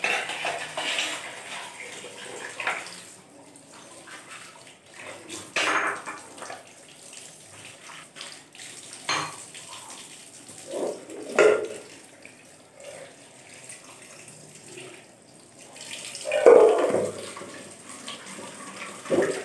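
Tap water running into a sink while dishes are washed by hand, with a few short knocks and clatters of dishes and an aluminium pot.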